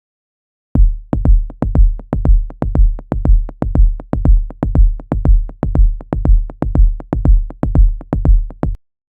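Suspense sound effect: a steady pulse of deep electronic bass-drum hits, about two a second, each with a sharp click on top and a short decaying boom. It starts about a second in and cuts off suddenly near the end.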